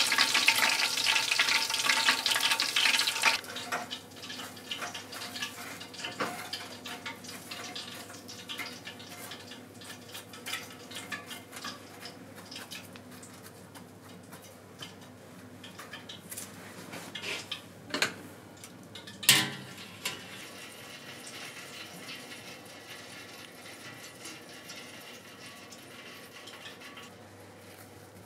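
Oysters frying in a pot of lard, the oil sizzling loudly for the first three seconds before it cuts off. After that, quiet handling with scattered light clicks and knocks, the sharpest and loudest about two-thirds of the way through.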